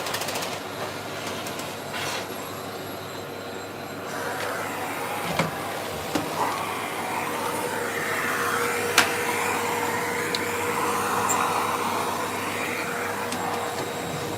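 Vacuum cleaner running steadily, its motor giving a constant whine under the rush of air, with a few short sharp knocks along the way.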